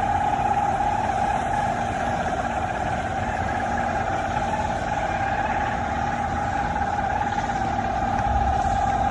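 A loud, steady droning hum held on one pitch without wavering, over a low rumble, of the kind circulated as an unexplained 'strange sound' in the sky.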